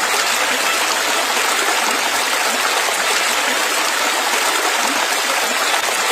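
Steady rush of running water, an even hiss that holds without change.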